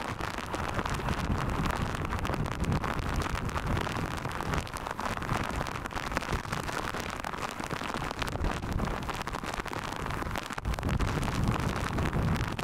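Storm wind buffeting the microphone over heavy rain: a steady rushing noise with rumbling gusts, the strongest one near the end.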